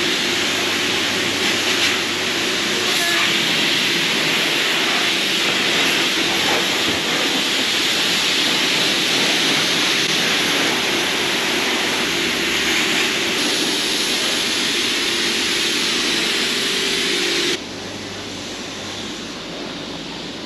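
Pressure washer spraying water: a loud, steady hiss with a steady pump tone underneath. A few seconds before the end both cut off sharply, leaving a quieter hiss.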